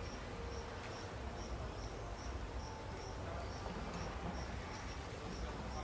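A cricket chirping steadily, about two short high chirps a second, over a steady low rumble of outdoor background noise.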